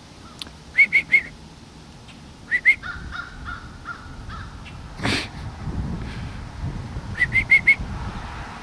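Crows cawing in short quick series: three calls about a second in, two more with some lower calls a couple of seconds later, and four in quick succession near the end. A brief burst of noise about five seconds in, with a faint low rumble after it.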